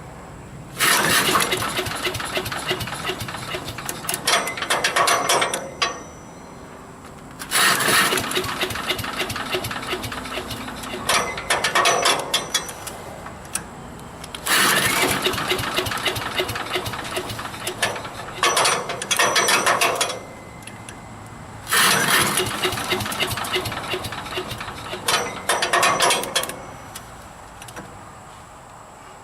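Four cranking attempts, about seven seconds apart, on a Troy-Bilt wood chipper's 250cc Briggs & Stratton engine. Each lasts several seconds and surges again near its end, and the engine does not start. The engine's carburetor is gummed up by ethanol gas left in it for years.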